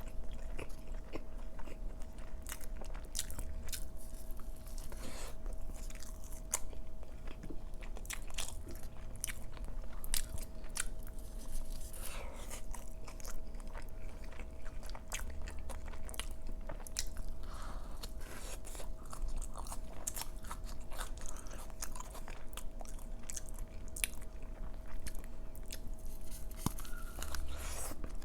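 Close-miked chewing and biting of a soggy fish taco dipped in cheese, a dense, irregular run of sharp wet mouth clicks.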